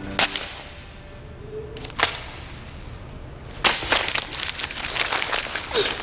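A paper note snapped sharply twice, then crumpled in the hands, crackling rapidly from a little past halfway.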